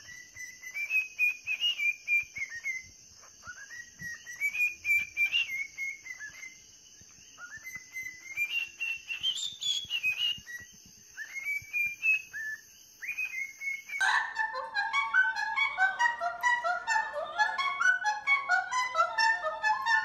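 Cockatiel whistling a tune in about four phrases of rising, gliding notes. About two-thirds of the way through the whistling breaks off, and a quicker, denser run of lower notes begins.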